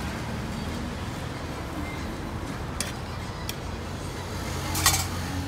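Steady low background rumble at a street-food stall, broken by three sharp clicks of metal tongs: two light ones in the middle and a louder one near the end.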